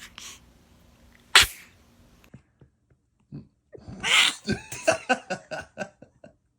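Baby sneezing: one sharp, loud sneeze about a second and a half in, then a breathier sneeze a few seconds later, followed by a quick run of short sounds at about five a second.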